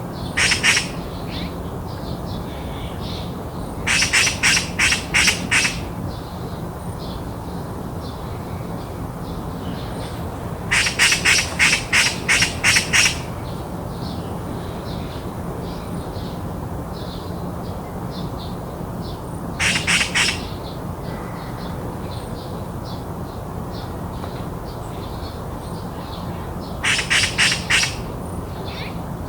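Magpie chattering: five bouts of rapid harsh calls, each one to two seconds long, over a steady low background hum, with faint small-bird chirps between the bouts.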